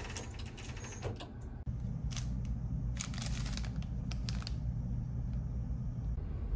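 Hotel toothbrush packet crinkling in the hand in a few short bursts, over a low steady hum that comes in about one and a half seconds in.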